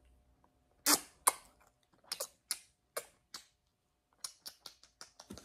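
Kissing: a run of short, sharp lip smacks, about fifteen at uneven spacing, over a faint steady hum.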